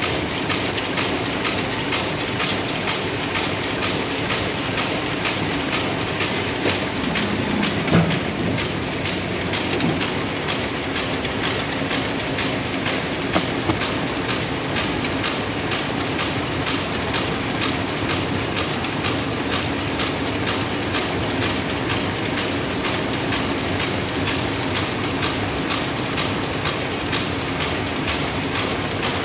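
Steady, fast clatter of running factory machinery. A louder knock comes about eight seconds in, and a smaller one about thirteen seconds in.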